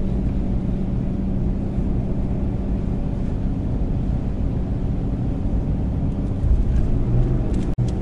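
2019 Ram 2500's 6.7-litre Cummins inline-six turbodiesel running steadily on a steep downhill grade with the exhaust brake holding the truck back. It gets louder and its pitch changes about six and a half seconds in, and the sound drops out for an instant just before the end.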